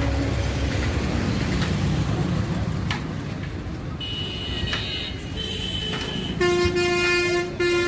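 Road traffic rumble, then a vehicle horn sounding one long, steady honk of about a second and a half near the end, after a fainter high-pitched tone a few seconds earlier.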